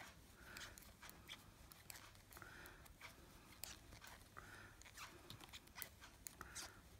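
Faint, irregular clicking of knitting needles as stitches are worked.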